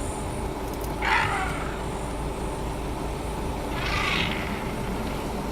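Two short animal cries, falling in pitch, about a second in and again about four seconds in, over a steady low hum.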